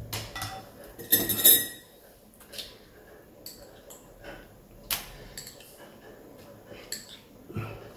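Glass bowls and a metal utensil clinking and knocking against each other and the tabletop in scattered taps, with a longer, louder clatter about a second in and a sharp click near the middle.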